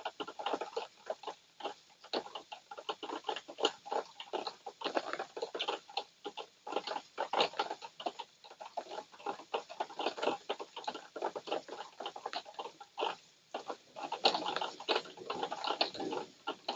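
Raindrops pattering and dripping onto surfaces: a dense, irregular run of small taps and splats.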